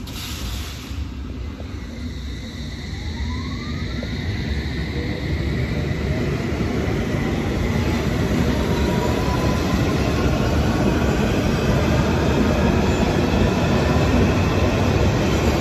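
London Underground S8 Stock Metropolitan line train pulling away from the platform. Its traction motors whine steadily higher in pitch as it accelerates, under rising wheel-on-rail rumble that grows louder as the cars pass close by.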